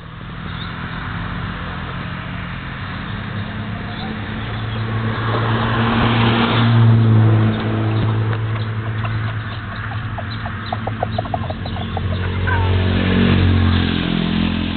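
Motor vehicles running past on a road, the engine sound swelling twice as vehicles go by, about halfway through and again near the end.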